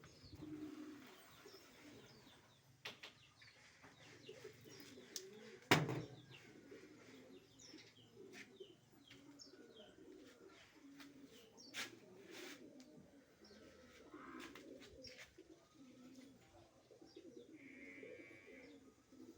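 Doves cooing faintly and repeatedly, with small bird chirps, and a single sharp knock about six seconds in.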